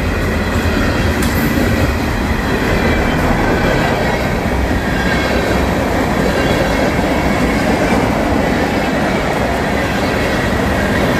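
Freight train cars rolling past close by: a loud, steady rumble of steel wheels on the rails, with a faint wheel squeal running through it.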